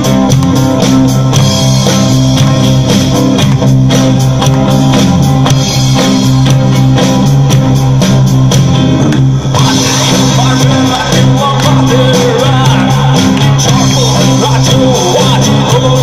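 Live acoustic rock band playing unplugged: strummed acoustic guitars over a steady drum-kit beat, with a voice coming in singing a little past halfway through.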